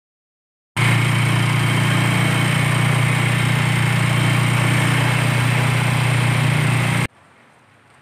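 Motorcycle engine of a tricycle (motorcycle with sidecar) running steadily while riding, heard from inside the sidecar, with a loud rush of road and wind noise. It starts suddenly under a second in and cuts off abruptly about a second before the end.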